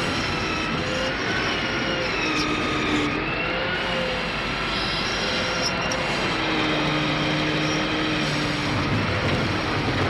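Engine and hydraulics of a log-loading crane running steadily, with whining tones that slowly rise and fall in pitch as the crane lifts and swings a log.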